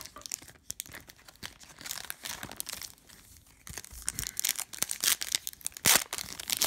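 Foil wrapper of a Panini Prizm card pack crinkling in the hands, then torn open at the seam: a run of irregular sharp crackles and tearing that grows denser and louder over the last few seconds, the loudest rip about six seconds in.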